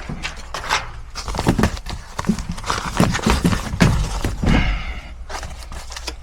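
Irregular knocks, clunks and scrapes from work on ductwork and the unit being handled, over a steady low hum.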